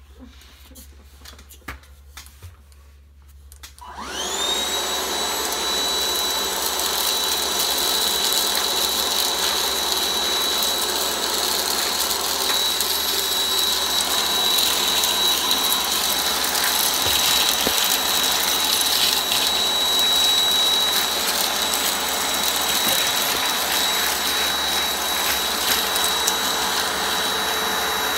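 A few light clicks. Then, about four seconds in, a cordless vacuum cleaner with a tool attachment fitted switches on. Its motor whine rises quickly to a steady high pitch and it keeps running at an even level.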